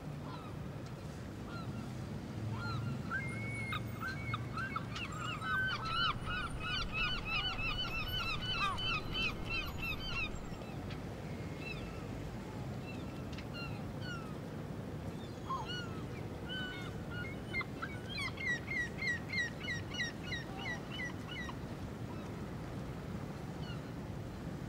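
Birds calling: a long run of quick, repeated pitched calls in the first half and a shorter run later, over a steady low background rumble.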